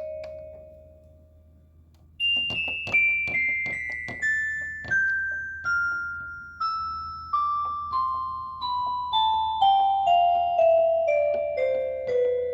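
Electronic keyboard in a piano-like voice: a held note fades away, then after a short pause a slow descending run of single notes begins about two seconds in, roughly two notes a second, stepping down from high to the middle register.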